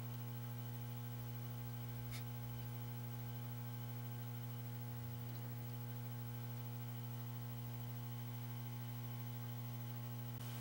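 Steady electrical mains hum with a row of overtones, and one faint click about two seconds in.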